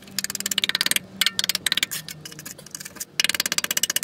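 A screwdriver tip tapping and scraping at rusty sheet steel in a Mazda MX-5's rear wheel arch, in several bursts of rapid clicking with short pauses between. The metal is being probed to see whether it is still solid under the surface corrosion.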